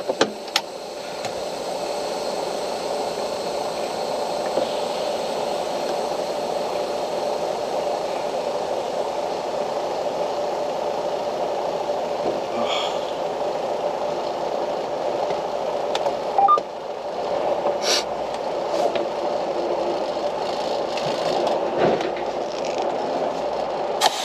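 Steady mechanical hum of a parked truck running, with a few light clicks and rattles in the second half.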